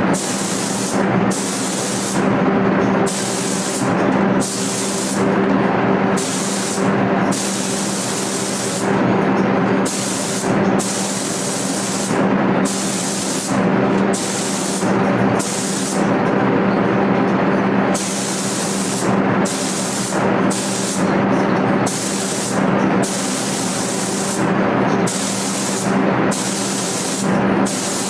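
Gravity-feed air spray gun hissing in many short bursts, each half a second to two seconds long with brief breaks as the trigger is pulled and released, over a steady low hum.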